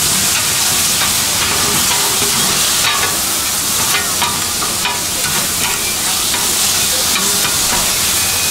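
Pork tripe sizzling and steaming on a hot flat-top griddle as it is stir-fried: a loud, steady hiss, with a few clicks between about three and five seconds in.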